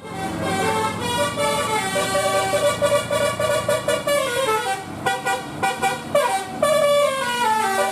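Indonesian bus 'telolet' multi-tone horn playing a tune: loud held notes that step from pitch to pitch, with sliding glides between notes about four seconds in and again near the end.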